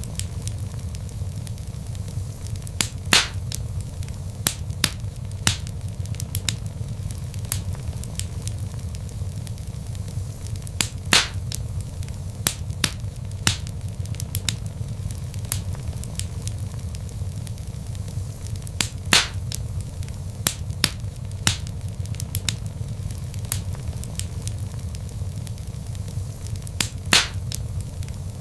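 Logs burning in a fireplace: irregular sharp crackles and pops over a steady low rumble of the flames, with a few louder pops about every eight seconds.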